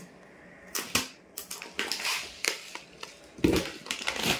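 Plastic packaging crinkling and rustling as it is handled: bubble wrap around a plastic litter tray and a bag of cat litter, in a series of irregular crackles, loudest about three and a half seconds in and again near the end.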